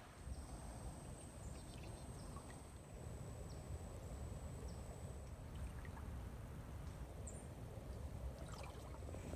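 Quiet water sounds from a kayak on calm floodwater: faint trickling and dripping with scattered small ticks, over a low steady rumble.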